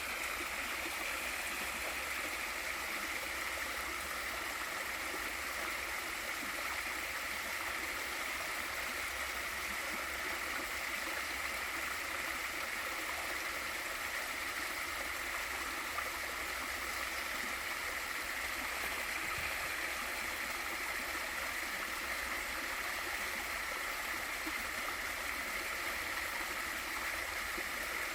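Waterfall pouring into a mountain stream: a steady, even rush of falling and running water.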